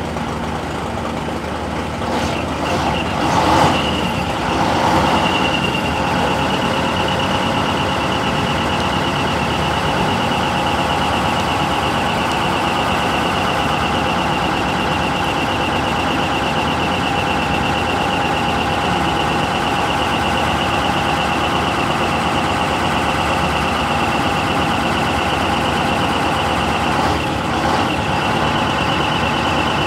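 Steady engine drone, with a generator running close by mixed with the decorated truck's idling engine. A louder rush of noise swells twice, about three and five seconds in. From then on a thin, steady high whine sits above the drone.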